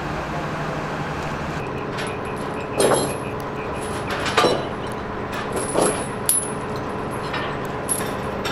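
Several sharp metal clanks from tie-down chains being worked on a heavy-haul lowboy trailer, over a steady engine hum. The two loudest clanks come about three and four and a half seconds in.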